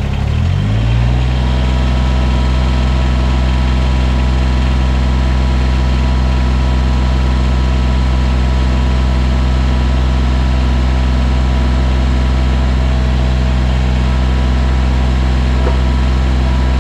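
Kubota BX23S compact tractor's three-cylinder diesel engine running steadily at raised RPM to power the backhoe hydraulics. It revs up over the first second, then holds a constant pitch.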